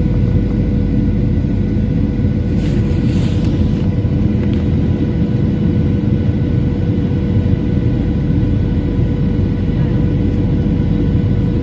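Steady cabin noise inside a Boeing 737-900 airliner: a loud, even low rumble of engines and airflow with a steady hum over it, and a brief hiss about three seconds in.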